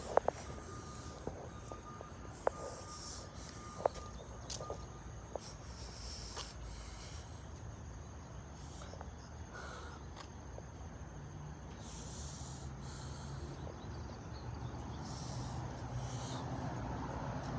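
A person breathing close to a handheld phone's microphone while walking, with sharp handling clicks in the first few seconds. A faint low hum comes in after about eleven seconds.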